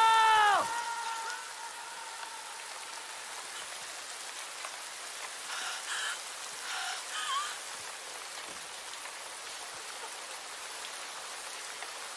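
Steady rain falling. A man's shout cuts off about half a second in, and a few faint cries come through the rain around six to seven seconds in.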